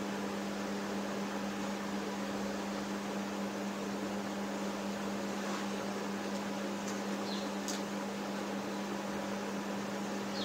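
Steady electrical hum with an even hiss from a mains-powered appliance running in the room, with a few faint short squeaks of a marker on a whiteboard in the middle.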